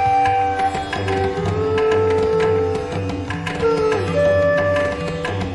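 Indian classical-style background music: a melody of long held notes that slide up and down between pitches, over a steady hand-drum rhythm.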